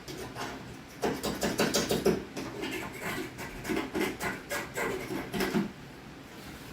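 Stainless steel caulk tool scraping at stubborn old caulk: a quick run of short scraping strokes that starts about a second in and stops about a second before the end.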